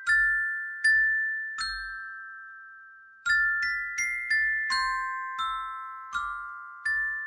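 Metal-bar glockenspiel struck with wooden ball mallets, playing a slow melody: three spaced notes, a pause while the last one rings on, then a quicker run of notes from about three seconds in, each note ringing and fading.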